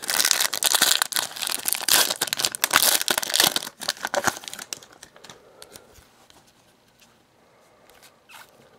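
Foil trading card pack being torn open and crinkled, loudly for about the first four and a half seconds. It then dies down to faint ticks and rustles as the cards are slid out and handled.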